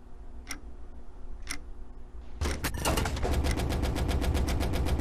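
A clock ticking about once a second, then about two and a half seconds in a louder, fast mechanical clatter of clockwork begins, about ten clicks a second.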